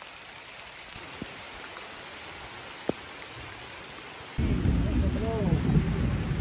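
Steady rain falling, with a few faint ticks. About two-thirds of the way in, a sudden loud, low rumble takes over.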